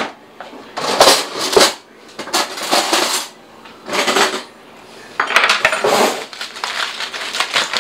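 Aluminum foil crinkling and rustling in several irregular bursts as it is peeled off a baked potato.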